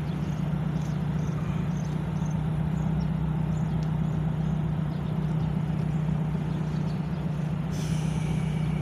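Audi R8's V10 engine idling with a steady low hum as the car waits at the garage exit. A higher-pitched hiss joins in near the end.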